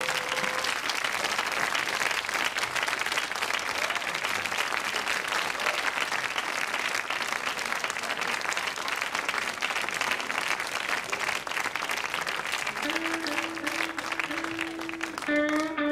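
Concert audience applauding and cheering. About three seconds before the end, a steady held note from the band comes in under the applause.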